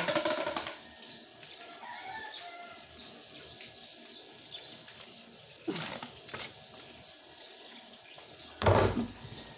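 Water running from a garden hose, a steady hiss, with a loud low thump near the end as a plastic basin is handled.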